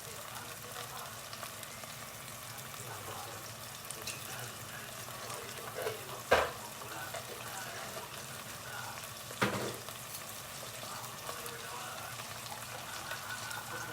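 Onions and boiled meat frying together in a pot, sizzling and crackling steadily. There are two sharp knocks, about six and nine and a half seconds in.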